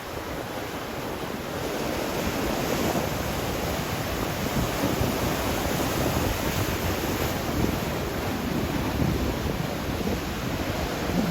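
Ocean surf breaking on a beach, a steady wash of waves rising about a second and a half in, with wind buffeting the microphone.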